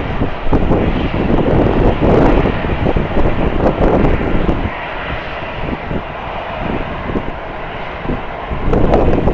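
Airliner engine noise, with strong wind buffeting the microphone in irregular gusts; it is louder in the first half, eases about halfway through, and swells again near the end.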